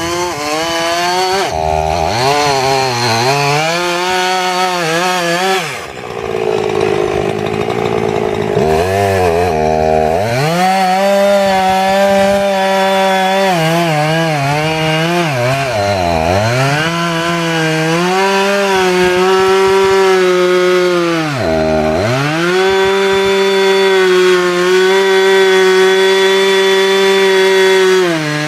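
Two-stroke chainsaw cutting into a dead tree, running at high revs with its pitch dropping and recovering several times as the throttle eases off or the chain bogs in the wood. The longest easing comes about six seconds in, lasting a few seconds, with shorter dips just past the middle and again later.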